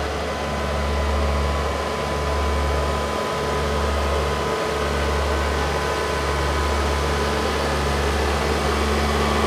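Steady low engine drone of a light-decorated farm machine driving slowly past close by, with a constant hum over it.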